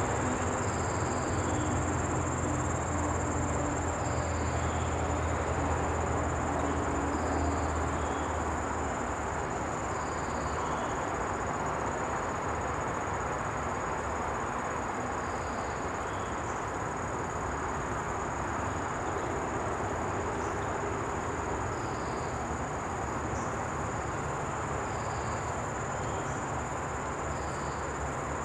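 Common bush cricket (Nisitrus vittatus) stridulating, rubbing its wings together in a continuous high-pitched trill. A low engine-like rumble sits under it for the first several seconds, over steady background noise.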